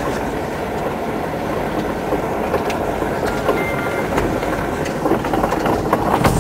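A vehicle driving along a rough dirt road: steady rumbling road and engine noise with a few light rattles.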